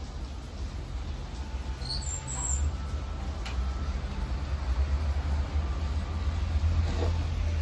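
Steady low rumble of distant city traffic with a faint even hiss above it, and a short high chirp about two seconds in.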